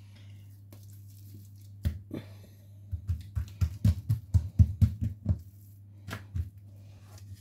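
Hands patting and pressing a piece of yeast dough flat on a tiled countertop: a couple of separate thumps, then a quick run of pats for about two seconds in the middle, and two more near the end.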